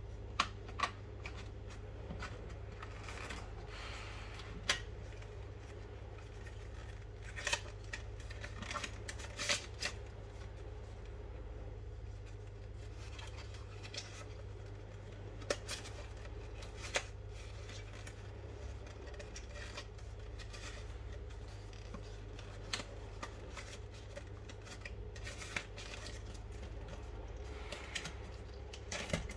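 Cardboard and paper tablet packaging being handled: scattered taps, clicks and short scrapes as the box inserts and the accessory box are lifted out, over a faint steady low hum.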